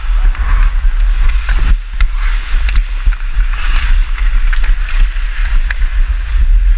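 Wind rumbling over a helmet-mounted action-camera microphone while skating fast. Over it, ice skate blades scrape the ice with each stride, and sharp clicks come from the hockey stick striking the puck as it is carried up the ice.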